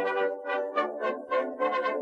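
Background music: a melody of short, quick notes over held tones.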